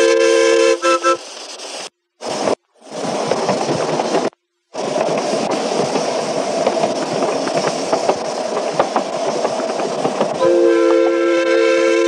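Miniature steam locomotive's whistle sounding a steady chord of several notes, cut off about a second in. After the sound drops out briefly, the running train gives a continuous rattle with wheels clicking on the track, and the whistle chord sounds again near the end.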